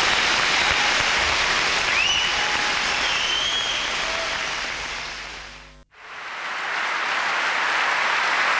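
Audience applauding. The applause fades away just before six seconds in and then swells back to full.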